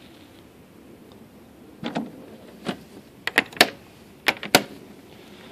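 Hard plastic saddlebag on a Honda ST1100 being shut and latched: a knock about two seconds in as the lid closes, then a series of sharp clicks and snaps as the latches lock.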